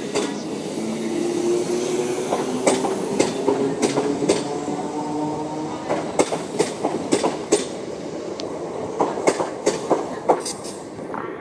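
A Class 377 electric multiple unit moving slowly through the station, its wheels clicking irregularly over rail joints and points, with a steady motor hum through the first half.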